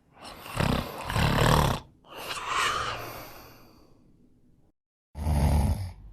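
Exaggerated human snoring: a long, loud snore on the in-breath, then a breathy out-breath that fades away. After a sudden break of total silence comes a second short, loud snore.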